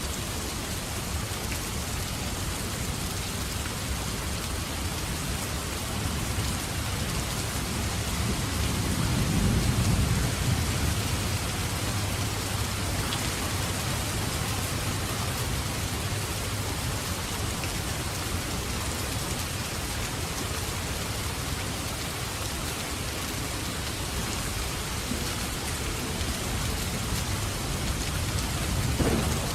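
Steady heavy rain, with a low roll of thunder swelling about a third of the way in and a shorter rumble near the end.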